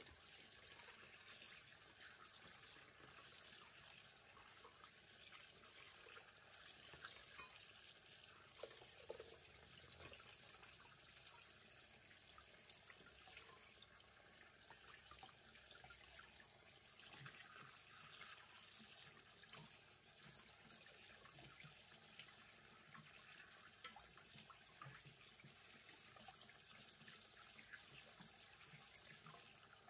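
Faint tap water running into a stainless steel basin, splashing over fish being rinsed and rubbed by hand to wash off salt.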